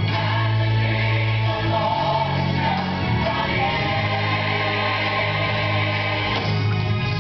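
Recorded gospel choir song playing loud and steady: choir voices singing over a sustained band accompaniment with a held bass line.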